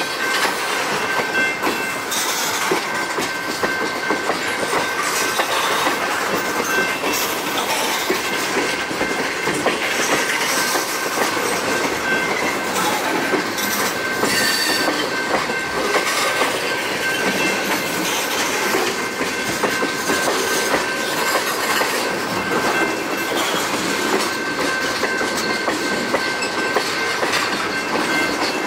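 Freight train of loaded tank cars rolling slowly past close by: steel wheels clacking over rail joints with a steady rumble, and a thin, steady high whine running underneath.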